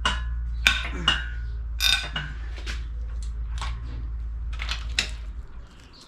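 Hand tools working on engine bolts: sharp metallic clicks and clinks with a ratchet-like character, about seven spread over a few seconds. A steady low hum runs under them and fades near the end.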